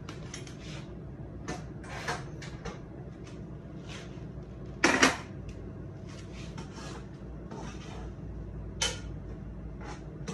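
Kitchen clatter: a run of short knocks and clinks, with the loudest knock about five seconds in and another near nine seconds, over a steady low hum.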